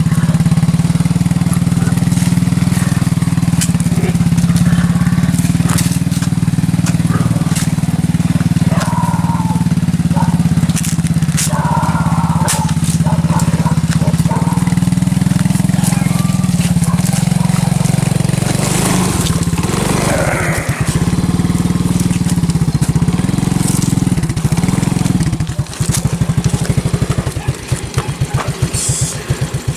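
A motor running steadily with a low hum and occasional clicks and clatter over it. Over the last few seconds the hum breaks into an uneven, pulsing beat.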